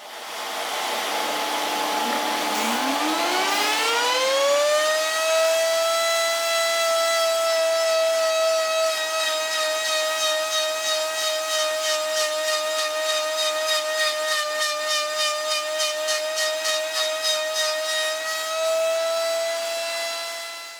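Router motor in a router table spinning up, its whine rising in pitch over a few seconds and then running steadily. Through the middle its sound pulses evenly, about twice a second, as the end of a wooden rod is turned against a molding bit. It cuts off suddenly at the end.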